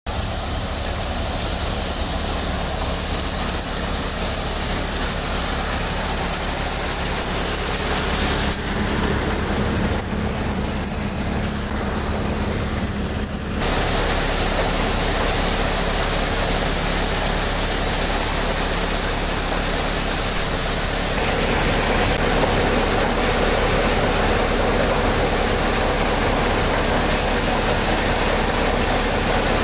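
New Vishwakarma cutter thresher running steadily while threshing ajwain (carom seed), giving a constant machine hum with an engine drone under it and the sound shifting abruptly a couple of times.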